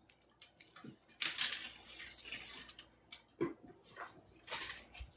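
Hands breaking apart a compressed cornstarch brick: crumbly crunching and crackling in a few bursts, the longest starting about a second in and another near the end.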